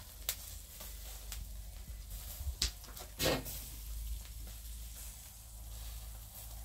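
Pork souvlaki skewers sizzling faintly over a charcoal grill, with a steady low rumble underneath. A few sharp clicks come through, the loudest just over three seconds in.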